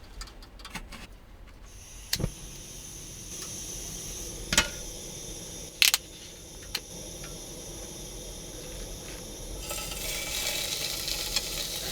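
A few sharp clinks and knocks of pots and cooking utensils. About two-thirds of the way through, food starts sizzling in a frying pan.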